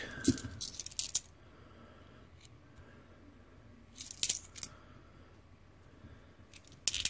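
Australian 20-cent coins clicking and clinking as they are picked from a roll and handled in the fingers. The clicks come in three short clusters: in the first second, around four seconds in, and just before the end.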